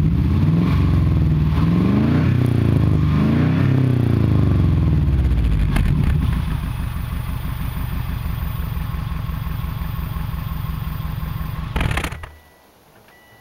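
Exhaust of a 2005 Subaru Impreza 2.5 RS flat-four with unequal-length headers and an OBX cat-back, blipped up and down several times, then idling with its uneven burble. The engine is switched off about twelve seconds in, and the sound stops.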